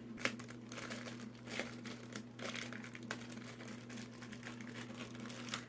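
Packaging being handled: paper and plastic rustling and crinkling with scattered light clicks and taps, over a steady low hum.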